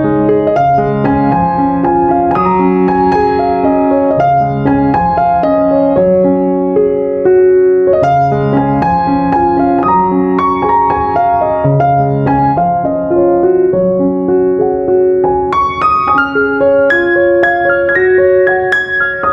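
Background piano music: a gentle melody over chords, with higher notes joining near the end.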